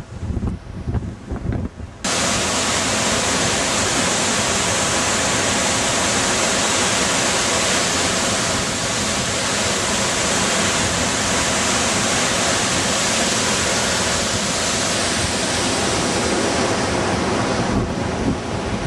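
Wind buffeting the microphone, then about two seconds in a sudden switch to the loud, steady rush of a waterfall swollen with floodwater. Near the end it gives way to gusty wind on the microphone again.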